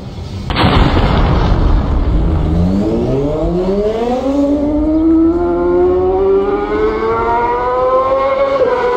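A sudden loud burst of noise about half a second in, then a siren winding up from a low pitch into a steady high wail: the start signal for a mass swim start.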